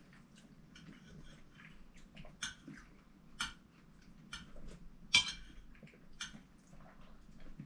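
Forks and spoons clinking and scraping against china plates and bowls while two people eat, with faint chewing sounds; the sharpest clink comes about five seconds in.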